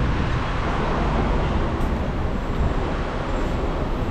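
Steady street traffic noise: an even, low rumble of passing vehicles, with no single event standing out.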